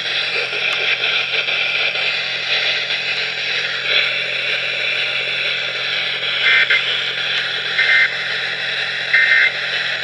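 Weather alert radio switched to FM, its speaker giving out a steady, loud static hiss over a low hum. Three short beeps come in the second half.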